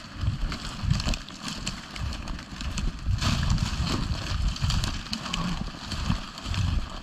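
Footsteps in snow in a steady walking rhythm, with dry reed and cattail stalks brushing and crackling against clothing and a shotgun as they are pushed aside.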